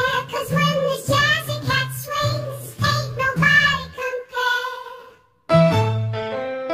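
Background music: a children's-style song with singing over a bass line. It fades out about five seconds in, and after a brief gap a keyboard melody of short notes begins.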